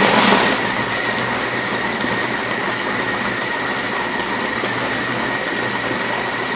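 Food processor motor running steadily, its blade grinding chunks of raw liver, salted pork fat, soaked bread and egg into a smooth batter. A steady high whine sits over the churning noise.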